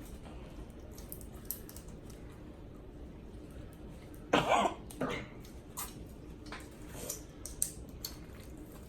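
A person coughs twice in quick succession about four seconds in, over scattered faint clicks and smacks of eating.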